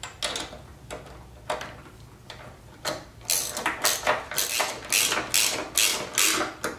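Socket ratchet wrench tightening a bolt: a few scattered clicks, then about three seconds in, quick, even ratcheting strokes about five a second.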